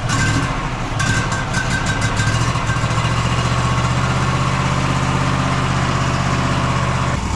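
Gas engine of a Wood-Mizer LT40 sawmill running steadily just after a cold start on choke, with the note changing shortly before the end.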